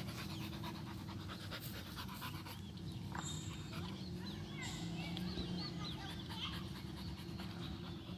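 A Rottweiler panting with quick, even breaths.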